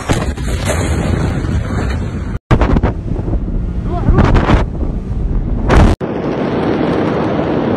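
Loud, rough rushing roar of wind buffeting a phone microphone, heard in three pieces broken by two abrupt cuts. The middle piece, from a boat on the water as the blast's dust cloud rolls in, has the loudest gusts, surging about a third of the way in and again near the second cut.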